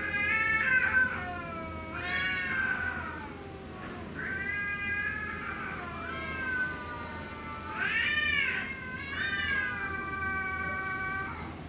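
Stray cats yowling at each other in a fight standoff: a string of long, drawn-out wavering cries, sometimes overlapping, with short pauses between them; the last cry is held for several seconds.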